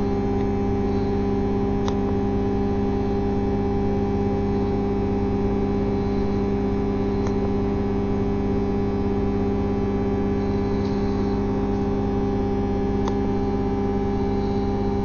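Steady electrical hum of high-voltage substation equipment: several steady low tones that hold unchanged throughout, with a few faint clicks spread apart.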